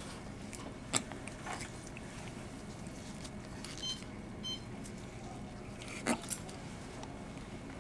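Quiet hospital room tone with a steady low hum, broken by two short knocks, one about a second in and one near six seconds, and by two brief electronic beeps about half a second apart around the middle.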